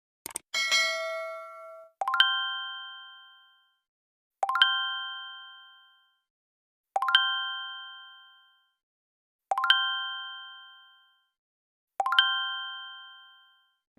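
Bling sound effects: a bright, glittery chime near the start, then a metallic ding with several ringing tones struck five times, about every two and a half seconds, each fading out over a second and a half.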